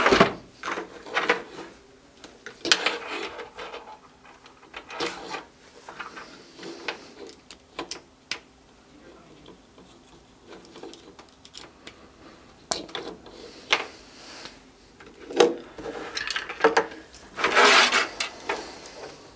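Handling noise from cables and connectors: scattered rustling, rubbing and light clicks as wires are fitted into a screw terminal block and plugged into a DVR, with a longer scraping rustle near the end.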